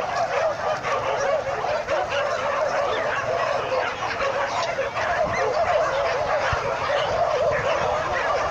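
A pack of dogs barking and yelping together in a continuous chorus of many overlapping, wavering cries.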